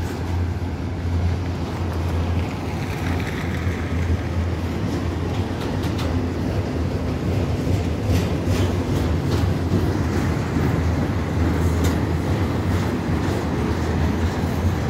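Double-stack intermodal container train of well cars rolling past with a steady low rumble. Scattered sharp clicks join in from about eight seconds in.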